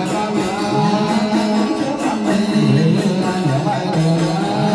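Vietnamese ritual ceremony music: a sung melody over plucked strings, with drum and percussion keeping a steady beat.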